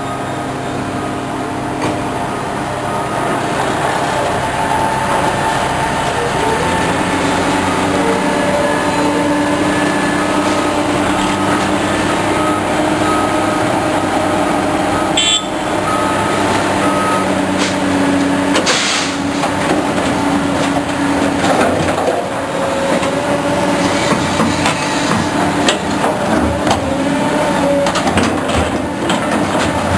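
Heavy road-construction machinery running, its diesel engines droning with pitch changing as they work. Short repeated beeps come partway through, and knocks and clanks come toward the end.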